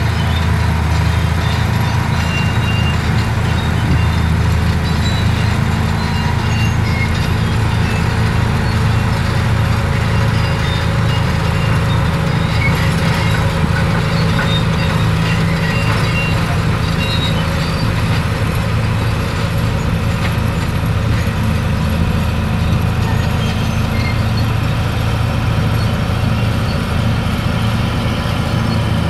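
Komatsu D155 crawler bulldozer's diesel engine running steadily as the machine moves across the slope, a loud continuous low hum.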